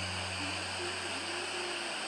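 Background music's low sustained notes fading away over a steady rushing hiss.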